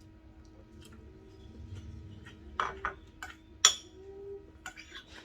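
Cutlery clinking against a dish while eating: a quiet start, then half a dozen sharp clinks in the second half, one much louder than the rest.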